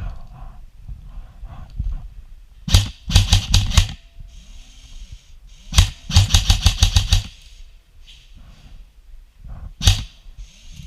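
Airsoft electric rifle firing: a rapid string of about half a dozen shots, a second longer string a couple of seconds later, then one single shot near the end.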